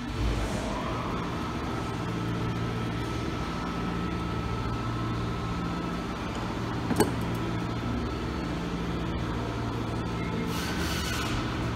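Steady low hum of repair-shop background noise, with one sharp click about seven seconds in and a short hiss near the end.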